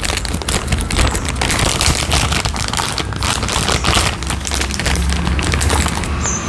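Clear plastic bags crinkling and crackling as they are handled and opened right at the microphone: a dense, irregular run of crackles.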